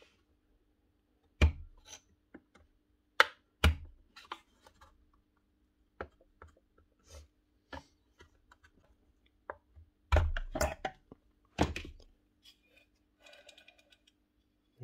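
Sharp clicks and knocks of a screwdriver prying at the motor housing of a Makita 1805B planer as the housing is worked loose and lifted off with the armature: a few single knocks in the first four seconds, scattered small clicks, and a cluster of louder knocks between ten and twelve seconds in. A faint steady hum sits underneath.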